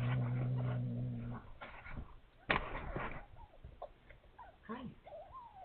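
Newborn kittens mewing: several short, thin squeaks that rise and fall in pitch, starting about four and a half seconds in. Before them come a low steady hum in the first second or so and a brief sharp noise midway.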